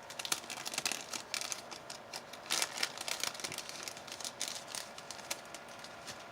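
Crinkling and rustling of craft-kit paper pieces and their packaging being handled, many short irregular crinkles, loudest about two and a half seconds in.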